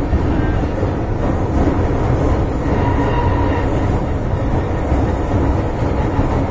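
Inside a first-generation MTR M-Train carriage on the underground Island Line, running between stations: a steady, heavy rumble of wheels and running gear. Faint steady high whining tones come in about three seconds in.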